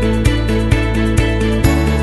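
Background music with a steady beat of about two beats a second. The bass note changes near the end.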